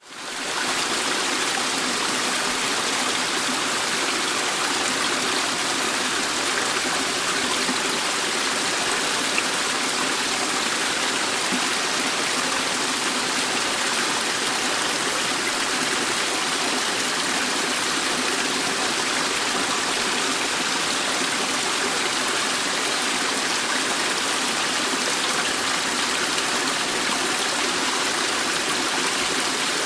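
Waterfall: water falling and rushing in a steady, even hiss, fading in over the first second.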